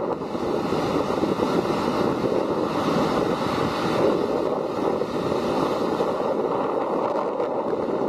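Atlantic surf in a light chop: small waves breaking and washing up the sand in a steady rush that swells briefly about three to four seconds in, heard through a camera's built-in microphone.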